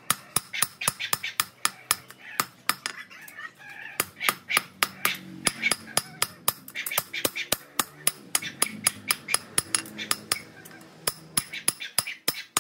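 Hammer blows ringing on steel, a steady run of about three strikes a second, as a knife blade is forged from aircraft landing-gear steel.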